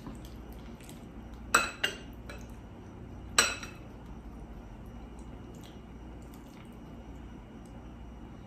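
A utensil clinking against a food container while scooping baked macaroni: two sharp clinks close together about a second and a half in, then a third about two seconds later, each with a brief ring.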